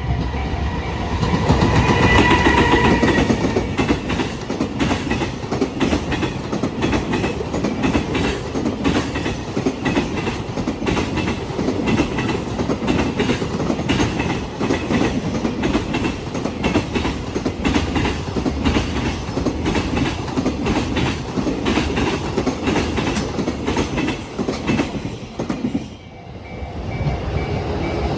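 Freight train wagons rolling over rail joints at a level crossing: a long, dense, rapid clatter of wheels on the joints that dies away about 26 seconds in. The crossing's warning bell rings in a steady repeating ding at the start and again near the end.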